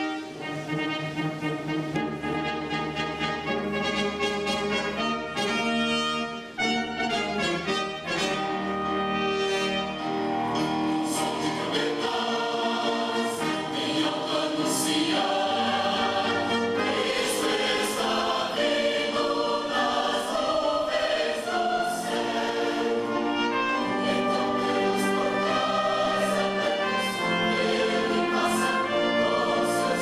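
Mixed choir singing with a full symphony orchestra, brass prominent over the strings, in a sacred choral piece.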